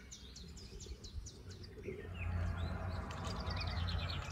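Birds chirping with short high calls, ending in a quick run of them. A low rumbling hiss comes in about halfway.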